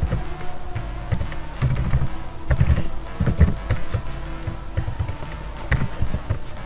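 Computer keyboard being typed on: short, irregular key clicks with low thumps as a command line is edited.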